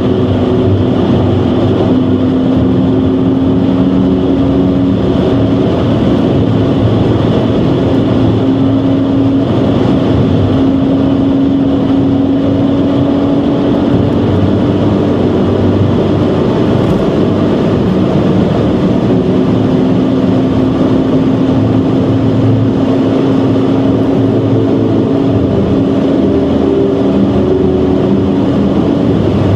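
BMW 130i's 3.0-litre straight-six engine droning steadily, heard from inside the cabin at motorway speed over constant road and wind noise. The engine note creeps slightly upward through the first half, fades for a few seconds, then returns.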